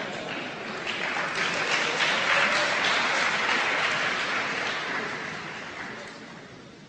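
Audience applauding in a lecture hall, the clapping building for about two seconds and then dying away gradually.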